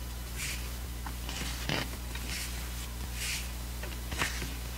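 Pages of a photo book being turned one after another: about five short paper swishes and slides, with two soft taps, one near the middle and one near the end.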